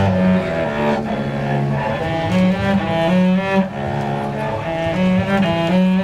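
Solo cello bowed, playing a melody of held notes that change every second or so.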